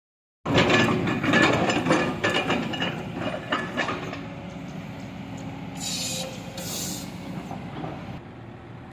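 Kobelco SK210LC-8 hydraulic excavator moving on its steel crawler tracks: loud, rapid clanking and rattling of the track links starting about half a second in, easing after about four seconds to a steadier running sound. Two short hisses come around six and seven seconds in.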